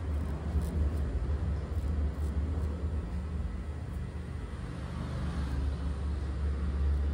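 A razor scraping beard stubble during a clean shave, heard as a faint rasping hiss over a loud, steady low rumble.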